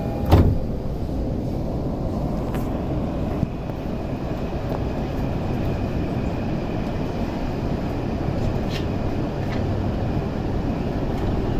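The doors of a JR E231-500 series commuter train shutting with one loud thud about half a second in, followed by the steady hum and rumble of the standing carriage, with a small click a few seconds later.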